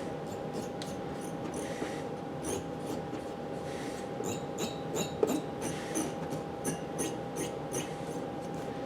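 Light clicks and taps from handling the heatsink and CPU of a desktop computer, more frequent in the second half, over a steady background tone.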